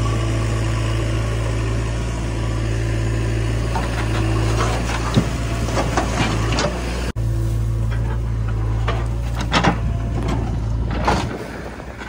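Diesel engine of a backhoe loader running steadily while its bucket tips soil and clods into a steel tractor trolley, the clods knocking against the trolley several times. Near the end the engine sound drops away.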